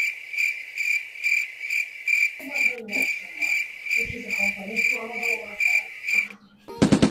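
Cricket chirping, a steady high pulsing trill of about three pulses a second that cuts off suddenly about a second before the end. A short loud burst follows just before the end.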